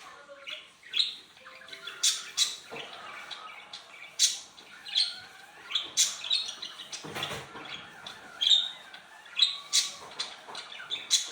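Slime being mixed and worked by hand: irregular short, wet squelches and pops, about one or two a second.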